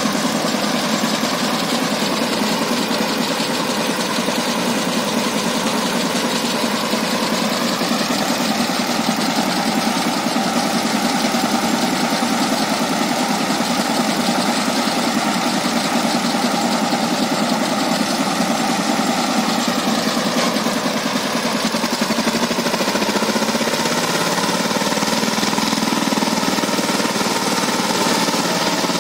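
Power tiller's single-cylinder diesel engine running steadily, then revving up and rising in pitch about two-thirds of the way through as it is put under load to pull the bogged machine out of the mud.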